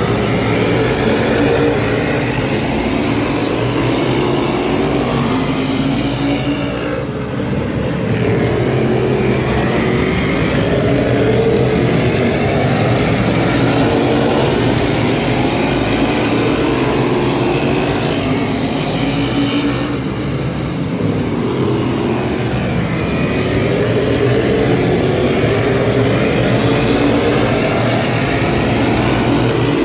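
A field of modified race cars' V8 engines running laps of a short oval track. The engine notes glide up and down as cars go down the straights and through the turns, and the sound swells and fades with each lap, dipping briefly about seven seconds in and again about twenty seconds in.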